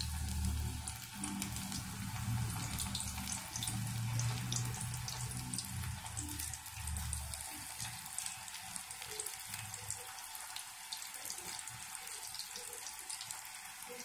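Battered cauliflower pakoda deep-frying in hot oil in an iron kadai: a steady sizzle with many fine crackles, as more pieces are dropped into the oil one by one.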